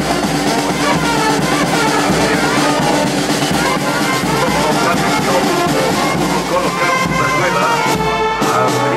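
Brass band music, with trumpets and trombones holding notes over a steady drum beat, against a dense background of crowd voices.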